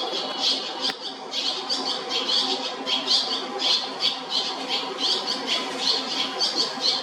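Barn swallow nestlings chirping in chorus from the nest, with a continuous run of rapid, high-pitched calls several times a second. A steady low hum runs underneath.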